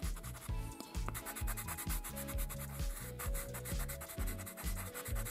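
Soft background music with a steady beat and a sustained melody. Under it, a pastel pencil scratches on sanded pastel paper.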